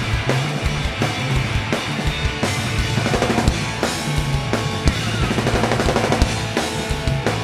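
Live rock band playing an instrumental passage: a steady drum-kit beat with kick and snare over a bass line.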